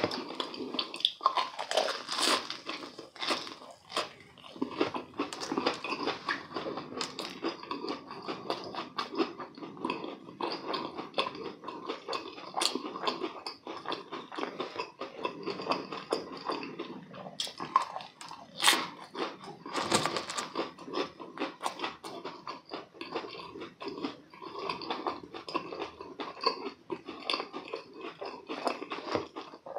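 Close-miked chewing and crunching of a deep-fried croquette with a crisp breadcrumb crust, in a continuous run of small crackly bites and chews.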